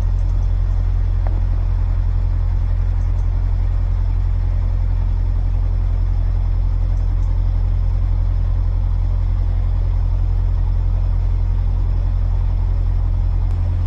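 Narrowboat's diesel engine running steadily at cruising speed, a constant low throb that dominates the sound.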